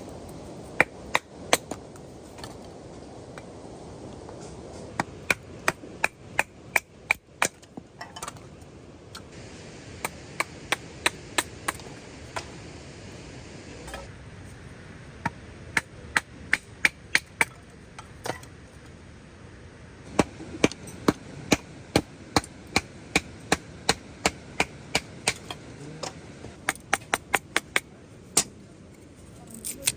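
A blade chopping against wood in quick runs of sharp strokes, about three a second, with short pauses between runs.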